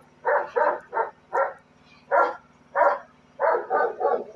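A dog barking repeatedly: about nine short barks, some in quick runs of two or three.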